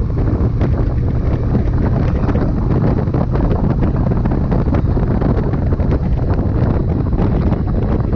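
Heavy wind buffeting the microphone: a loud, steady low rumble with frequent small crackles.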